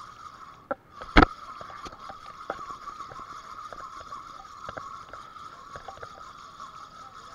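Steady hum of a fishing boat with water sloshing, broken by one loud sharp knock about a second in and scattered lighter clicks and taps.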